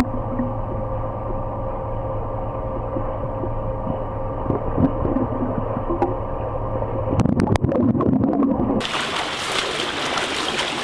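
Swimming pool heard underwater: muffled, with a steady hum, and the bubbling and splashing of a freestyle swimmer's strokes passing close to the microphone near the end. About nine seconds in the sound switches to above the surface: the swimmer's strokes splashing in the pool.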